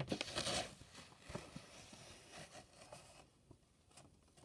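A paper instruction sheet rustling and crinkling as it is handled, loudest in the first second, then faint scattered rustles and taps.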